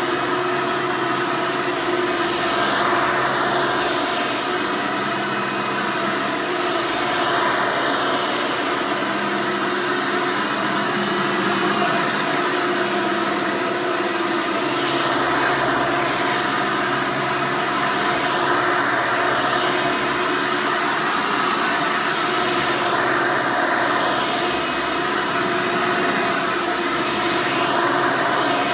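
Hoover Soft & Light (Elite 200-based) upright vacuum, with its 7-amp direct-air motor, running and vacuuming. Its sound swells and eases about every four seconds as it is pushed back and forth.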